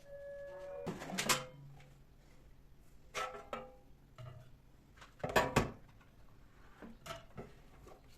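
Kitchen items being handled: a short steady tone in the first second, then four groups of sharp clatters and knocks. The loudest group comes about five and a half seconds in.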